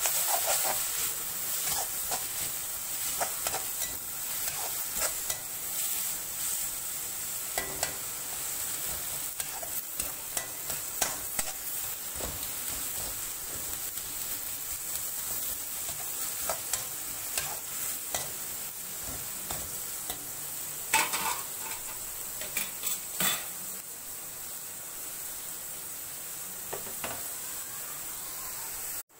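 Chopped tomatoes and onions sizzling in oil in a metal kadai as they sauté, while a metal spatula scrapes and taps against the pan with each stirring stroke. The steady frying hiss is broken by irregular scraping clicks, with a few louder knocks of the spatula on the pan about 11, 21 and 23 seconds in.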